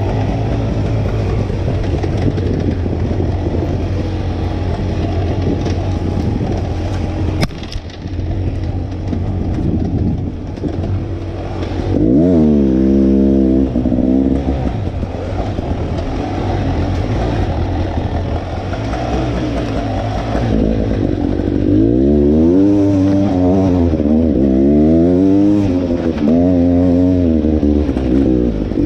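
Dirt bike engine under way on a trail. It runs fairly steadily at first, with a brief drop about seven seconds in. From about twelve seconds in, it revs up and down again and again as the throttle is worked.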